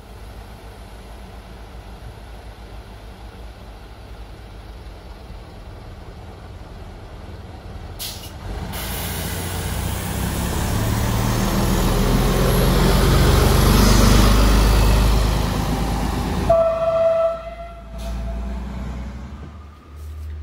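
ALn 668 diesel railcar's engine running at the platform, then growing louder as it pulls away, loudest about two-thirds of the way in. A short horn toot sounds near the end.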